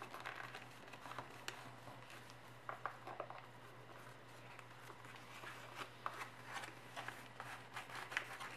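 Sheet of paper being folded and creased by hand into a paper airplane: scattered soft crinkles and ticks as the folds are pressed, over a faint steady low hum.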